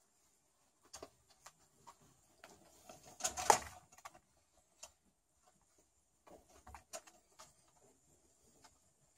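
Kittens' claws scratching and clicking on wood: scattered light ticks and scrapes, with one louder scratching scrape about three and a half seconds in.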